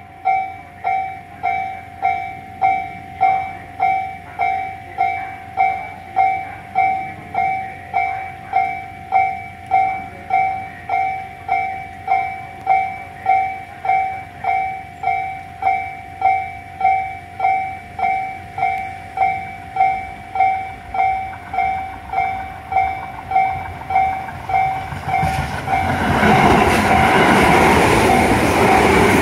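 Japanese level-crossing warning bell ringing, a pitched electronic ding repeated about every 0.8 s. From about 25 s in, a Tobu 8000-series train (set 8111F) comes past the crossing into the station, and the loud noise of its wheels on the rails rises over the bell.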